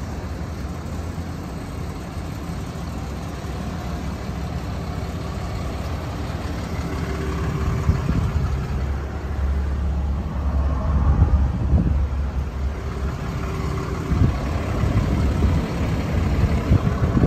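Ram 3500's Cummins turbo-diesel engine idling steadily, a low rumble that grows somewhat louder about halfway through, with a few light knocks later on.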